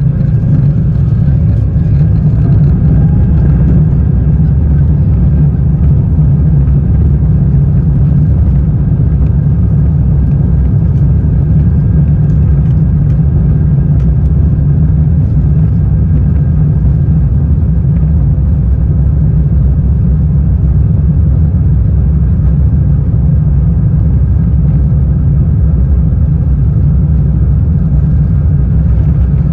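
Airbus A350-1000's Rolls-Royce Trent XWB engines and rushing air heard inside the economy cabin: a loud, steady low rumble that comes up sharply right at the start as takeoff power is applied, then holds level.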